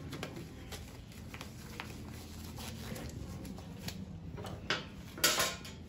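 Gloved hands handling steel surgical instruments and paper on a stainless steel tray: scattered light clicks, then a louder, short rustle of paper or gauze near the end.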